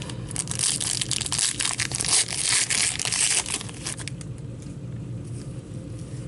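A hockey card pack's wrapper being torn open and crinkled by hand: a dense crackling rustle for about four seconds that stops as the cards come out, leaving only faint handling of the cards.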